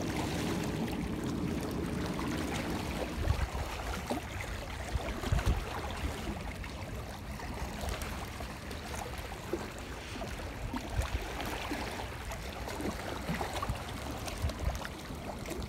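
Sea water lapping and sloshing as a steady hiss, with wind knocking on the microphone in occasional low thumps.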